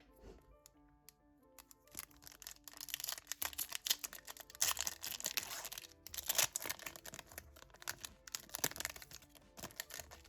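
Crinkling and tearing of Pokémon card booster packaging being opened by hand, starting about two seconds in and going on in spells, over background music.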